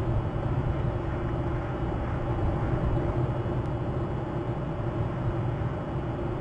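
Steady low rumble of outdoor ambient noise with no distinct events.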